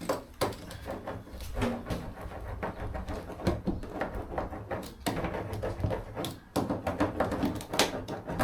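Hand roller pressed and rolled over foil-backed sound-deadening mat on the van's metal panel to work out air pockets, giving irregular clicks, crinkles and scraping.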